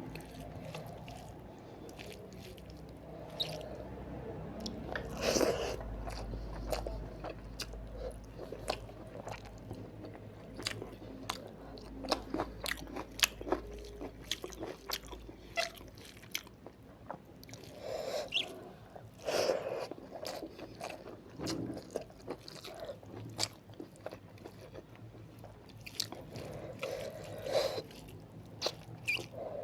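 Close-miked eating: chewing with crunchy bites of a meal of rice, palak paneer and raw onion salad. Wet clicks come irregularly throughout, with louder crunches every few seconds.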